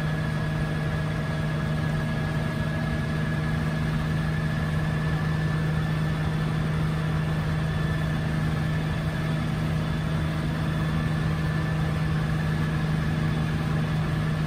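Cabin noise of a 1962 Hiller UH-12E helicopter in flight: its Lycoming VO-540 six-cylinder piston engine and rotor running steadily, with a strong low drone under a constant wash of noise.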